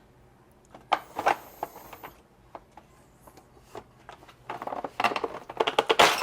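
Giant 3D-printed plastic OTF knife being worked by hand: a click and a scraping rattle about a second in, then a quickening run of plastic clicks that ends in a loud snap near the end as the blade mechanism fires.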